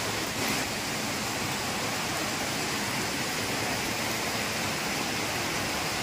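Steady rush of white water from a small waterfall cascading over rocks, with heavy rain falling.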